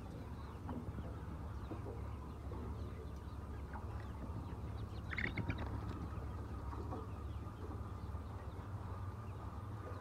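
A flock of white chickens in a shed making soft, scattered clucks and calls, with one louder call about five seconds in, over a steady low rumble.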